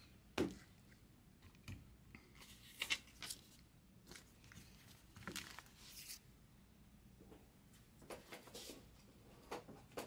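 Faint, scattered rustling and light taps from trading cards and their packaging being handled on a desk.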